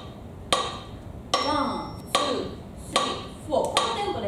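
Rhythm practice track playing a steady beat: a sharp, briefly ringing percussive hit about every 0.8 seconds, five in all.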